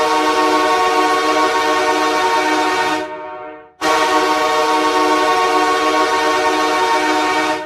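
A custom version of the LA Kings ice hockey goal horn sounding two long steady blasts of about three seconds each. Each blast fades out over most of a second before the next begins.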